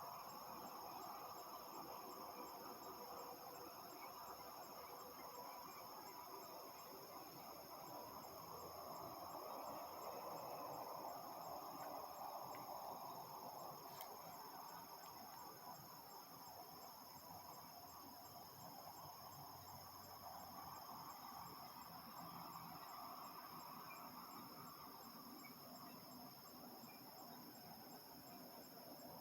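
Evening insect chorus: a steady, unbroken high-pitched trilling, over a faint broad hum of distant harvest machinery that grows a little louder midway.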